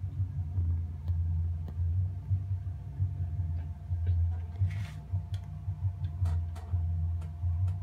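Low, uneven throbbing hum with scattered light clicks and one short scrape a little past the middle, as a chipboard base carrying a clay sculpture is turned by hand on a wooden workbench.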